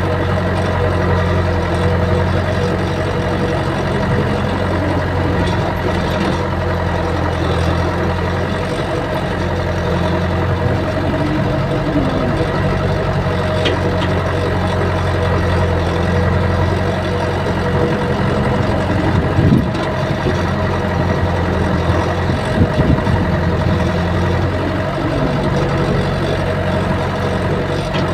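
Caterpillar excavator's diesel engine running steadily, heard from the operator's cab, with a few low thumps about two-thirds of the way in.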